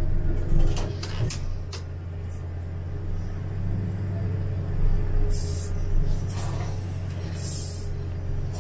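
Komatsu PC3000 mining excavator heard from inside its cab: the diesel engine and hydraulics drone steadily while the joystick is worked. A few clicks and knocks come in the first two seconds, and several short hisses come in the second half.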